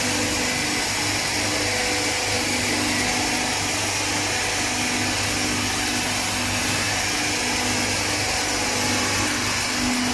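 A gas-heated continuous frying machine running on test: its gas burner and the oil-circulation and vacuum oil-filter pumps give a steady whirring noise with a low hum.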